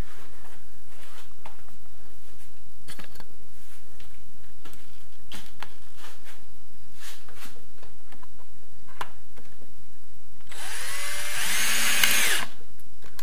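Electric screwdriver driving a self-tapping screw into a ceiling trim profile, running for about two seconds near the end, its motor pitch rising and then falling. Before it there are only scattered light clicks and knocks from handling.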